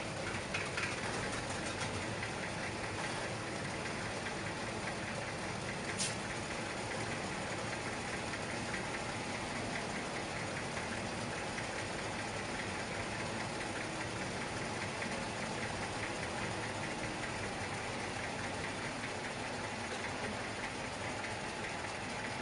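Several 1960s tractor engines idling and running together: a recorded concert piece for a tractor ensemble, played back over a lecture-hall sound system. A single sharp click sounds about six seconds in.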